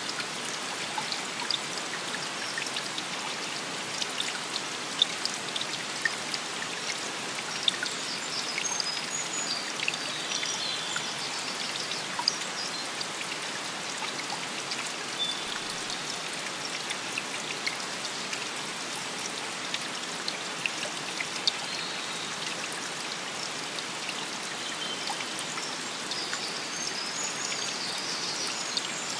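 Field recording of water: many close drips and splashes over a steady rush of water. Faint high chirps come through about a third of the way in and again near the end.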